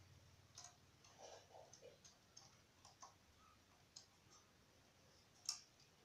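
Near silence with faint, scattered clicks and taps from pigeons moving about on concrete; the sharpest click comes about five and a half seconds in.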